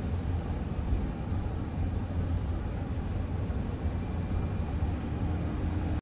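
Steady road noise of a moving minivan heard from inside the cabin: an even, low tyre and engine rumble.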